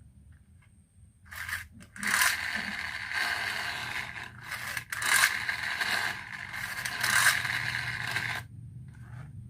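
Marbles rolling and rattling along a marble run track. The sound starts about a second and a half in, runs for about seven seconds with several louder surges, and stops suddenly near the end.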